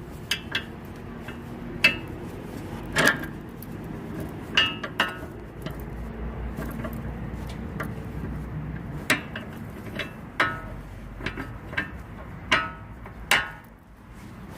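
Irregular sharp metallic clinks and knocks, about a dozen, some ringing briefly, as a new stabilizer (sway bar) link is fitted into the front suspension, over a low steady hum.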